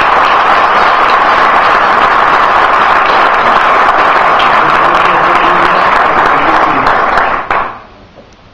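Audience applauding, loud and steady, dying away about seven and a half seconds in.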